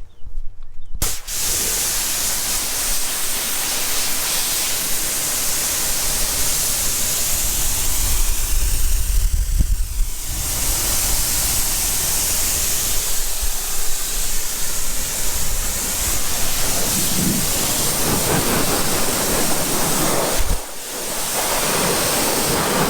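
High-pressure water jet from a Kranzle 1622TS electric pressure washer, hissing steadily as it rinses down a car with plain water. It starts about a second in and breaks off briefly near the end, as when the trigger is let go and pulled again.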